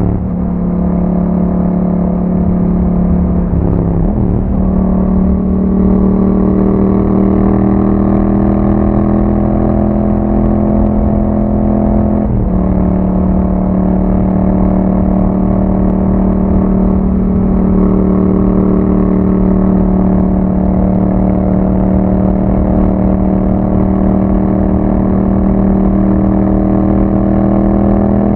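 Yamaha MT-07's 689 cc parallel-twin engine running through an Akrapovic exhaust while riding. It shifts up about 4 seconds in and again about 12 seconds in, with a brief break in the note each time. Between shifts it holds a steady note that slowly rises.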